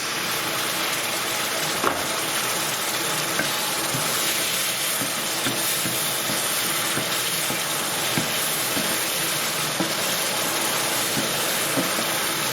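Curry base of onions, garlic, chillies and spices sizzling hard in a hot pan after a splash of water has gone in, a steady hiss with a few light clicks, like a spoon stirring against the pan.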